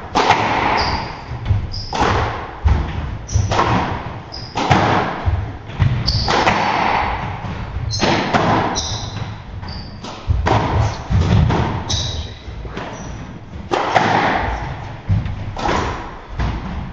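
Squash rally: the ball is struck by rackets and smacks off the walls in a rapid exchange of thuds every half-second to second, each echoing briefly, with short high squeaks of court shoes on the wooden floor.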